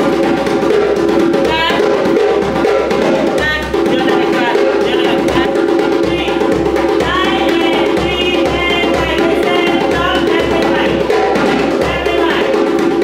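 Music led by hand drums and percussion, with steady held tones and wavering melodic lines over the drumming.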